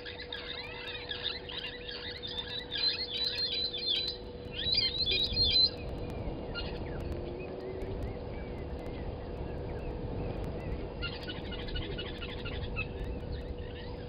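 Brown-headed parrots calling: runs of quick, shrill, squealing notes, loudest about three to six seconds in, then fainter, and picking up again near the end. A steady faint hum runs underneath.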